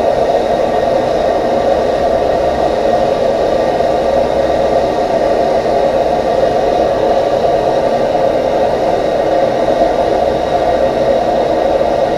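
Heat gun blowing steadily, heating a stuck, thread-locked part of the fork so it will come undone.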